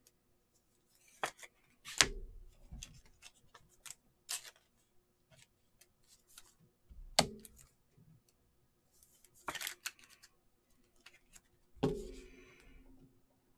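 Trading cards and hard plastic top loaders being handled on a tabletop: scattered short plastic rustles and sliding, with a few sharp taps as a top loader is set down, the loudest about two seconds and seven seconds in.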